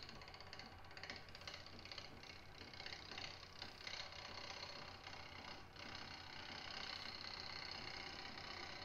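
Bowl gouge making light cuts on a spinning natural-edge bowl blank on a wood lathe, with the lathe running underneath: a steady rapid ticking hiss as the tool clips the last uneven flat spot on the rim with each turn.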